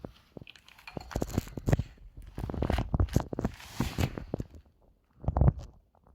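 Irregular clicking and rattling knocks from an e-bike fitted with a Shimano Steps E6100 drive unit, the unwanted noise the bike is making. There is a louder knock about five seconds in.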